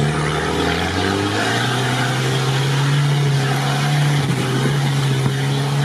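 Off-road vehicle's engine pulling under load at steady high revs as it drives through deep mud ruts, heard from inside the cab.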